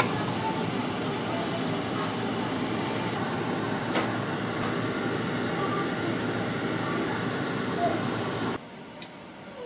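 Pepper sauce with snails sizzling in a stainless saucepan on the stove while a metal spoon stirs it, with an occasional click of the spoon against the pan. The sizzling cuts off suddenly near the end.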